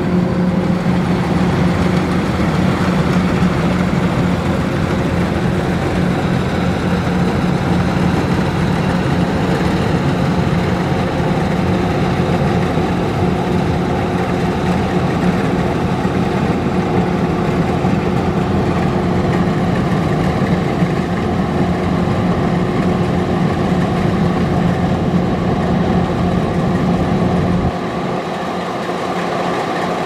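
Kubota DC105X combine harvester running steadily while harvesting rice: a diesel engine with a constant deep hum under the threshing machinery. About two seconds before the end the deepest part of the hum drops away and the sound gets a little quieter.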